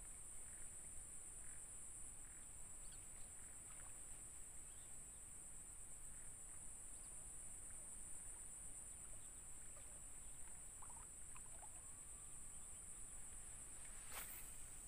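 Faint open-marsh ambience: a steady high-pitched insect drone over a low wind rumble, with a single sharp click near the end.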